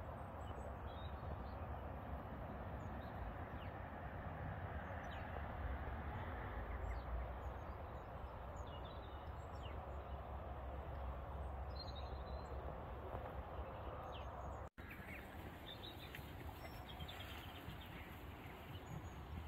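Outdoor farm ambience: a steady rushing noise with a low rumble, and faint, scattered bird chirps on top. The sound breaks off for an instant about 15 seconds in, then carries on much the same.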